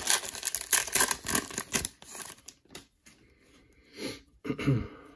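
Plastic cellophane wrapper of a trading-card cello pack crinkling and tearing as it is opened by hand. The crackle is dense for about the first two seconds, then thins to soft, scattered rustles.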